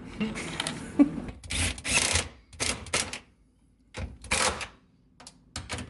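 Irregular clicks and rattles of hard plastic, a series of short sharp bursts with brief pauses between, as an aftermarket taillight and its wiring plug are handled and fitted.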